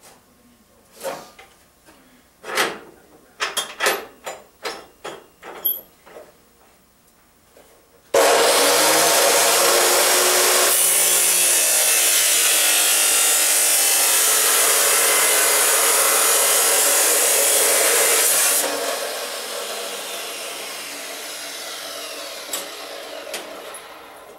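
A few clanks and knocks of steel being handled and set up, then a metal-cutting chop saw cutting through steel angle iron for about ten seconds, starting suddenly and loud, before the blade runs down slowly after the cut.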